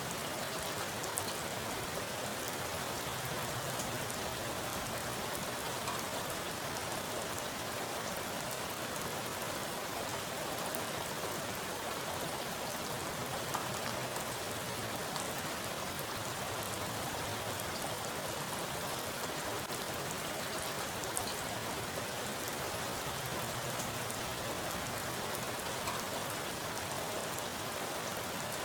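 Heavy rain falling steadily onto a pool of standing water, a dense even patter of raindrops striking the water surface, with a few louder individual drops now and then.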